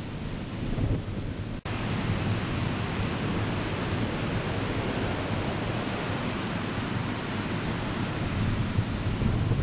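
Heavy storm surf from a typhoon swell crashing and rushing on the beach, with wind buffeting the microphone. There is a momentary break about a second and a half in, after which a steadier, brighter rush of surf follows.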